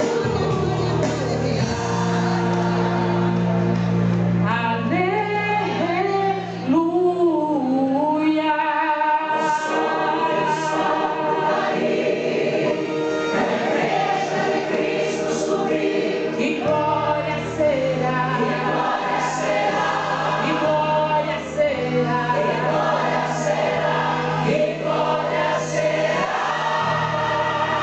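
Gospel song played for a dance: sung vocals with a choir over an instrumental backing with steady bass notes.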